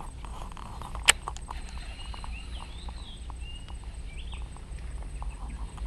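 A few short bird chirps in the middle, over a steady low wind rumble. A single sharp click comes about a second in, with faint scattered ticks throughout.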